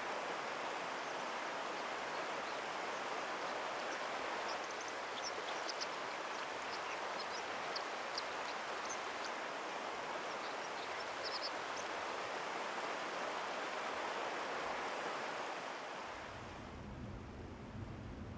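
Rushing mountain stream, a steady water noise with short high chirps scattered over it in the middle; the water fades near the end.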